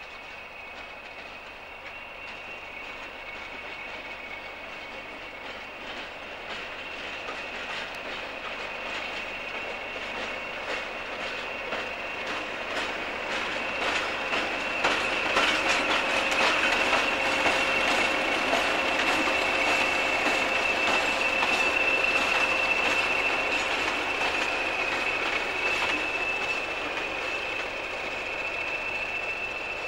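A pair of Class 20 diesel locomotives passing with their English Electric engines running and a steady high-pitched whistle over them. Their wheels clatter over rail joints. The sound builds to its loudest about halfway through, then fades slightly.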